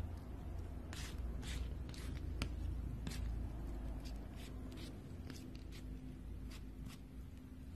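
Palette knife working a thick mound of paint: a string of short, soft scrapes and squelches with a few small clicks, over a low rumble.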